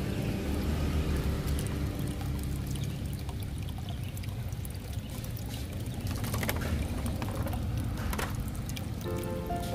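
Steady rushing noise, strongest low down, with a few sharp clicks as small plastic toy construction vehicles are turned over in the hands.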